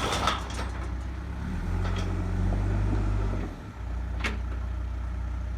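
Backhoe's diesel engine running steadily with a low hum, dipping briefly about two-thirds of the way through, with a couple of sharp clicks on top.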